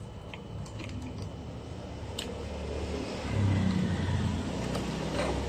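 A motor vehicle's engine rumbling in the background, growing louder about three seconds in, with a few light clicks of wiring and plastic being handled.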